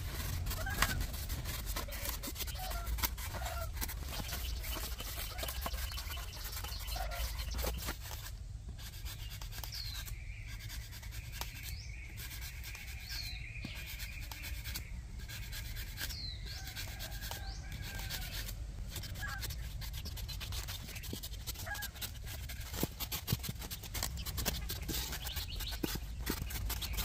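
Scratchy rubbing and scraping of a blade trimming foam, many small scratches and clicks, over a low rumble, with a few short high chirps in the middle.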